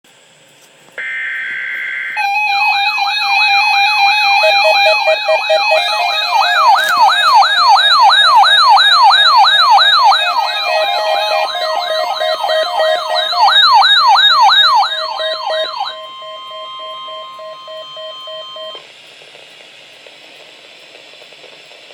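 Emergency alert test signal: about a second in, a short burst of data tones, then a loud alarm of several overlapping wails that rise and fall about twice a second over steady alert tones. The wails cut off at about 16 s, leaving one steady tone that stops near 19 s, followed by faint radio hiss.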